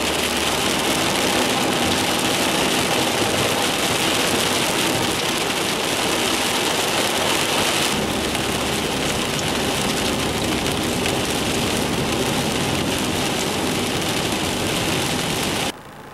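Monsoon downpour on a car's roof and windshield, heard inside the moving car: a steady heavy rush of rain over the engine and wet tyres. It drops suddenly to a much quieter level about half a second before the end.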